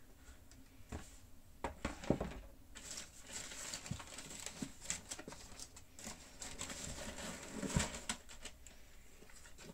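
Cardboard shoebox lid handled with a few light knocks, then tissue paper crinkling and rustling as sneakers are unwrapped, with a bump near the end as one shoe is lifted out.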